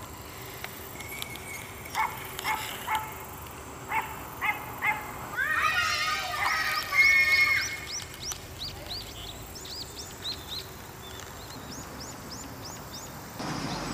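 Outdoor animal calls over a low steady background: a few short calls, a louder flurry of calls about six to seven seconds in, then a run of quick high chirps like birdsong.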